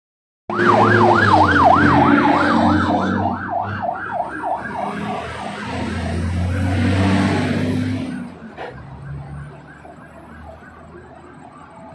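Emergency vehicle siren in a fast yelp, about three rising-and-falling sweeps a second, starting loud and fading as it moves away, over a low rumble of vehicle traffic that dies down near the end.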